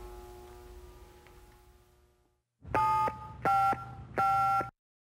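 Three telephone keypad (DTMF) tones, a number being dialled as a short sound effect. Each beep is two steady pitches at once, the first short and the last two a little longer, after a faint hum fades out.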